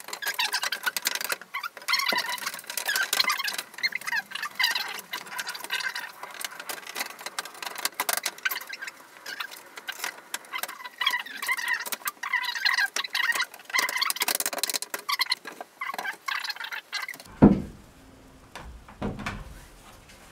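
Fast-forwarded sound of a wooden railing being assembled: squeaky, chipmunk-like chatter and quick clicks and knocks of wood. It cuts off abruptly about three-quarters of the way through, followed by one sharp knock and a couple of weaker thuds as a wooden rail is pounded down into place.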